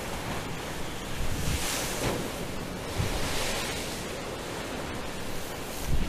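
Storm waves breaking and washing against a harbour sea wall: a continuous rushing surf that swells twice, with wind buffeting the microphone in a low rumble underneath.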